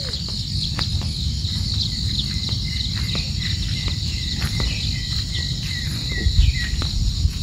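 Insects chirping in a steady, high, continuous chorus over an unsteady low rumble, with a few louder low bumps near the end.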